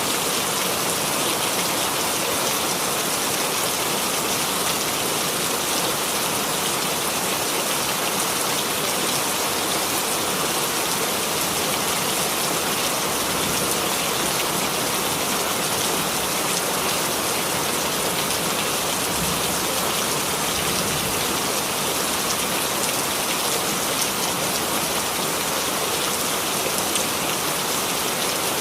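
Steady rain falling on a surface, an even hiss of many drops that holds constant without breaks or thunder.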